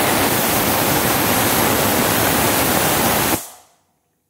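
Stovetop pressure cooker whistling: a loud, steady rush of steam escaping under the whistle weight, which cuts off about three and a half seconds in and fades quickly. The whistle is the sign that the cooker has reached full pressure, one of the two whistles counted to time the biryani.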